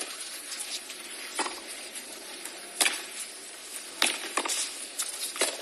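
Tennis ball struck back and forth by rackets in a rally: a series of sharp pocks about every one and a half seconds over a low crowd hush.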